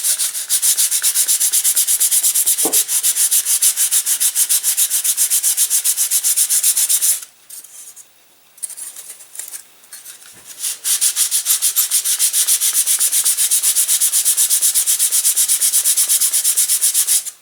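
Sandpaper being rubbed in rapid, even back-and-forth strokes over the tapered balsa trailing edge of a model-aircraft wing, smoothing out gouges. It stops for a few seconds midway, then resumes.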